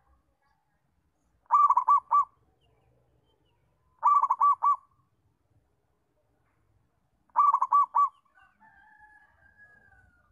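Zebra dove (perkutut) singing: three short phrases of about four quick cooing notes each, a few seconds apart.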